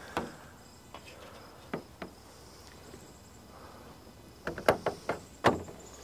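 Large plastic RV air-conditioner cover knocking and bumping as it is handled and lifted up onto the trailer roof: a few faint clicks, then a cluster of sharper knocks about four and a half seconds in.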